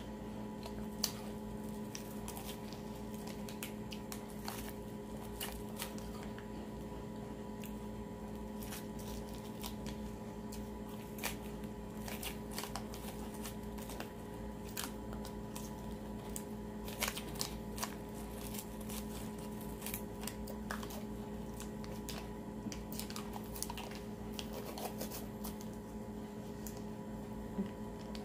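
Clear plastic freeze-pop sleeve crinkling in the hands while the ice is sucked and bitten, in scattered small clicks and crackles over a steady low hum.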